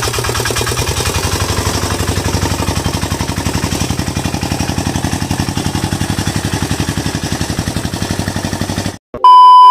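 A vehicle engine running steadily with a rapid, even throb. Near the end it cuts off abruptly and a loud, pure electronic beep sounds for under a second.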